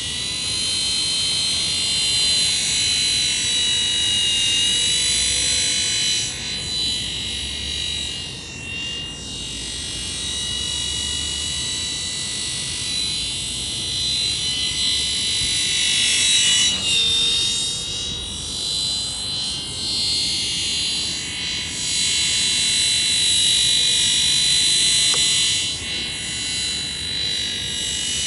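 Helimax Black Hawk, a small electric radio-controlled scale helicopter, in flight: its motor and rotors give a steady high-pitched whine whose pitch wavers and shifts as it moves around.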